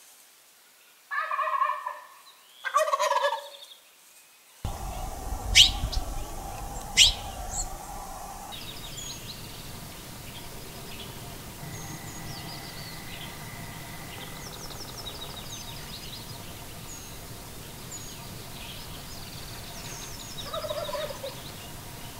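Gould's wild turkey gobbler gobbling twice in quick succession, then once more near the end, with small birds chirping in between. Two sharp clicks sound early in the middle stretch.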